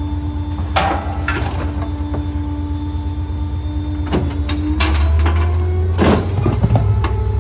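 Rear-loader garbage truck running with a heavy low rumble and a steady whine that swells about halfway through, with several sharp knocks and clanks from the rear hopper.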